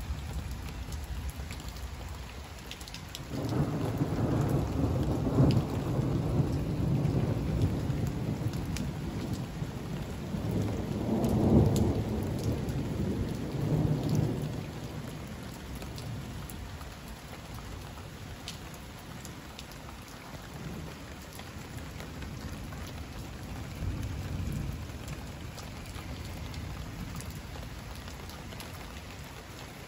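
Heavy rain falling steadily, with scattered drops ticking close by. About three seconds in, a long roll of thunder rumbles in, swells twice and dies away after about fifteen seconds. A fainter rumble of thunder comes later.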